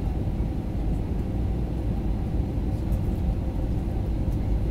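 Steady low rumble of engine and airflow noise inside the cabin of an Airbus A320neo descending to land, with a faint steady hum.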